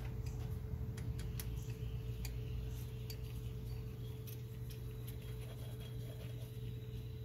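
Faint, irregular metallic clicks and ticks of a socket on a long extension being turned by hand to run a thermostat housing bolt down finger tight, over a steady low hum.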